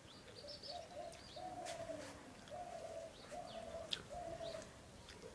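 A dove cooing: a run of about five even, repeated notes, with small birds chirping faintly higher up and a single sharp click about four seconds in.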